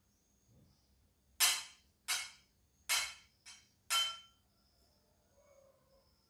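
Tableware clinking during a meal: five sharp clinks, each with a short ring, about half a second to a second apart, the fourth one fainter.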